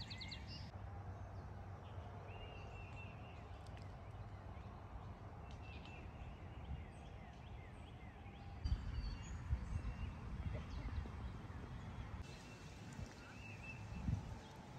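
Outdoor park ambience: a steady low rumble, heavier from about nine seconds in, with faint chirps of small birds.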